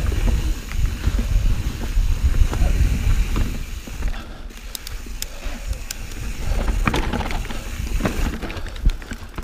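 A plus-tyre Santa Cruz Hightower mountain bike rolling over leaf-covered dirt singletrack, with wind buffeting the microphone as a constant low rumble. Sharp clicks and rattles from the bike come through, a cluster about halfway and more near the end.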